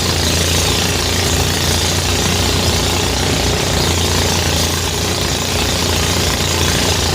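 Engine-driven rice thresher running steadily under load: a constant low engine drone with a steady hiss over it.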